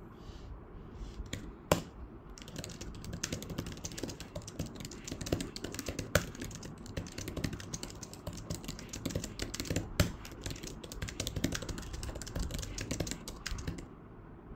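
Typing on a Huawei Magnetic Keyboard, the tablet's attached physical keyboard: a fast, steady run of key clicks starting about two seconds in and stopping just before the end, with a few louder key strikes along the way.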